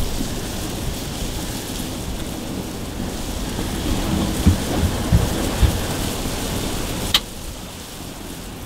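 Wind rushing and buffeting on the microphone outdoors, with a few low thumps around the middle and one sharp click about seven seconds in.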